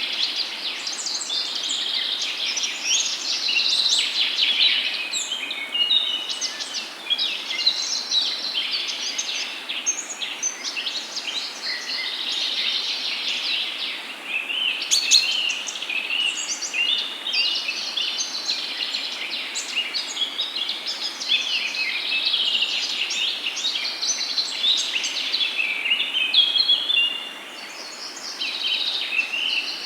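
Many birds singing and chirping at once, a dense overlapping chorus of high chirps and trills over a steady background hiss, thinning briefly near the end.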